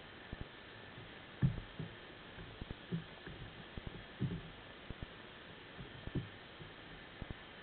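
Irregular dull thumps and knocks, about a dozen, the loudest about a second and a half in and again near the middle, over a steady hiss picked up through an underwater camera housing. Feeding fish are knocking against the lobster trap and the camera.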